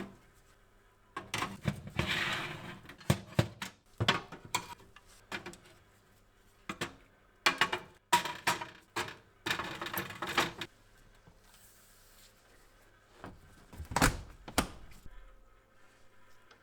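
Irregular metal clinks, knocks and short scrapes from adjustable server-rack brackets and parts being handled and set in place in an old industrial oven. A faint steady low hum runs underneath.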